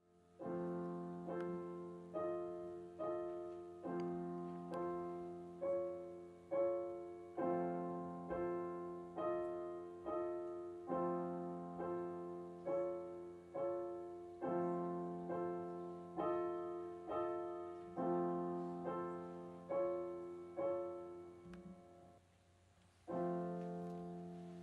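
Solo piano playing a steady run of chords, a little more than one a second, each struck and left to fade, with the bass note shifting every four chords. The chords pause briefly near the end, then a new low chord rings on.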